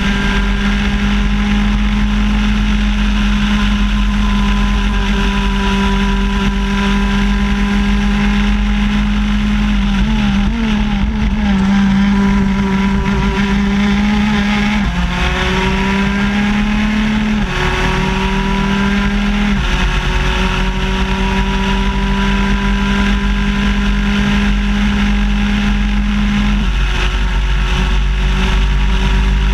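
Onboard sound of a shifter kart's two-stroke engine running at high revs. Its pitch holds steady for long stretches, then about halfway through drops and climbs again twice, as on gear changes down the straight, over a heavy low rumble.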